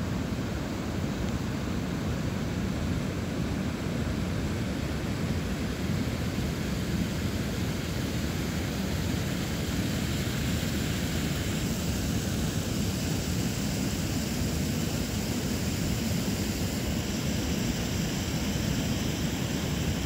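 Water of the Venta River rushing and foaming over the wide, low drop of the Venta Rapid waterfall: a steady, unbroken rushing noise.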